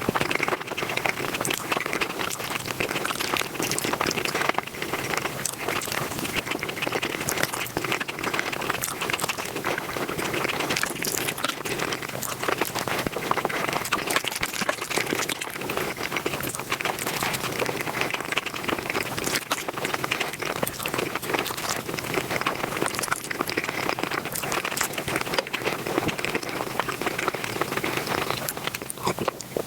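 Close-miked eating sounds sped up to five times normal speed: chewing and mouth noises blur into a dense, unbroken crackle of tiny clicks.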